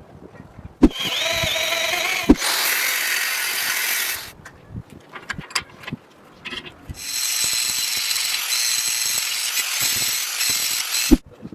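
A handheld power tool runs twice, for about three seconds and then about four seconds, with a high whine over a hiss. Sharp clicks and knocks come between the two runs.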